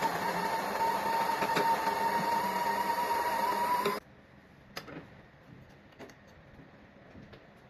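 Electric coffee grinder motor running steadily with a high whine, which rises slightly and cuts off suddenly about four seconds in. A few faint clicks follow.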